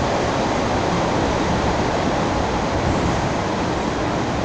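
Suburban electric train (elektrichka) running along the line, heard from inside the carriage: a steady, loud rushing noise.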